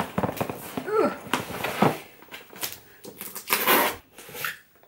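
Packing tape being pulled and torn off a cardboard box by hand, heard as a series of short rips and scrapes, the loudest nearly four seconds in.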